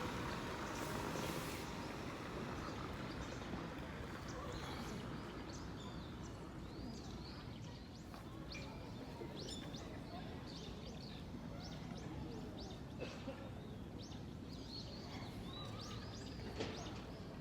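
Small birds chirping many times in short, arching chirps over a steady outdoor background hum.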